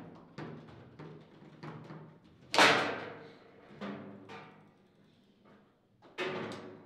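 Foosball table in play: sharp knocks and clacks of the ball and the rods against the players, with a loud bang that rings on for about a second, about two and a half seconds in, as the ball is shot into the goal. Another heavy knock near the end.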